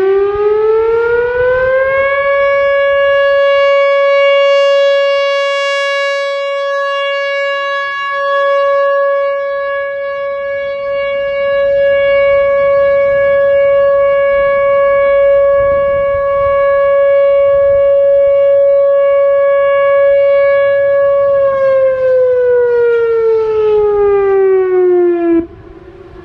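Loud Whelen WPS-4004 electronic outdoor warning siren sounding a steady alert tone. It winds up to a single steady 560 Hz tone over about two seconds and holds it, with the level dipping slightly for a few seconds. It then winds down over about four seconds and cuts off abruptly about a second before the end.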